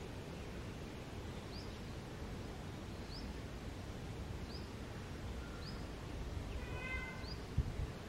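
Birds calling over a steady low outdoor rumble: a short high chirp repeats about every one and a half seconds, and near the end comes a longer call of several stacked tones. A brief low knock sounds near the end.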